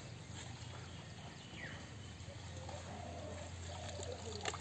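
Faint trickling and dripping of water as a wet cast net is drawn in by hand through shallow river water.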